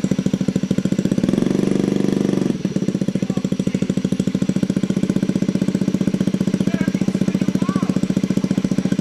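Honda Ruckus's 49 cc four-stroke single-cylinder engine idling through a BR Quick header exhaust, a fast, even putter. The revs rise briefly about a second in and settle back to idle after about two and a half seconds.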